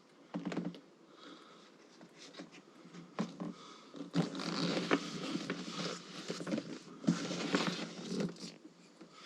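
Hands handling saddlebag mounting parts while lining one up: irregular rustling and scraping with light clicks, louder and busier from about four seconds in.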